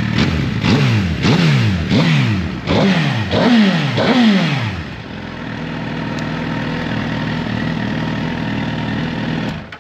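2014 Suzuki GSX-R1000's inline-four with a Yoshimura slip-on exhaust, revved in about six quick throttle blips. Each blip rises sharply and falls back. It then settles back to a steady idle.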